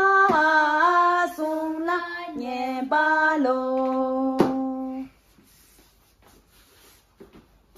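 Young girls singing a Tibetan song, one unaccompanied melody in long held notes that stops about five seconds in. After that, near-quiet with a few faint taps.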